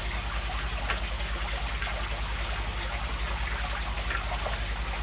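Aquarium filters trickling and splashing steadily over a low hum, with a few faint clicks from a hand screwdriver at work.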